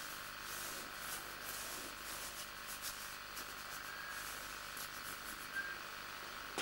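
A stick of white dry drawing medium rubbing and scraping across canvas in short, irregular strokes, over a steady background hiss.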